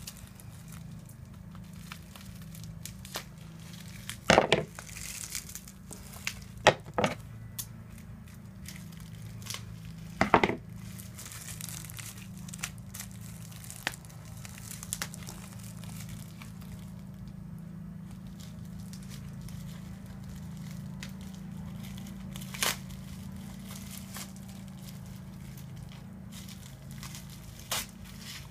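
Packing wrap crinkling and tearing as it is pulled off the parts of a new cuckoo clock, with a few sharp loud crackles at irregular intervals. A steady low hum runs underneath.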